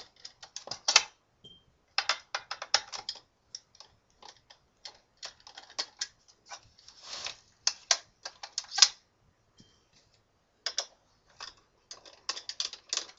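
Torx screwdriver working the screws out of an Xbox 360 case: a run of small, sharp clicks and ticks of metal on metal and plastic, in bursts with short pauses between them.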